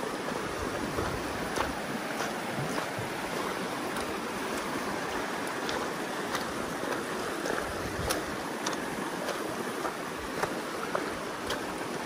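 Shallow, fast mountain river rushing over a pebble and stone bed: a steady rush of water, with a few faint clicks now and then.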